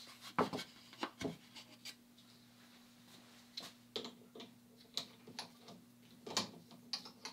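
Scattered light knocks, clicks and rubbing from wooden pieces and metal fittings being handled and set up on a drill press table, loudest about half a second in and around six seconds in. A faint steady hum runs underneath.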